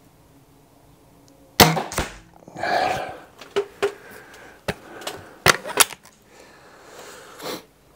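A .22 Weihrauch HW99S spring-piston break-barrel air rifle fires once, a sharp crack about one and a half seconds in, the loudest sound here. This is followed by a run of metallic clicks and clunks as the barrel is broken open to cock the spring for the next pellet.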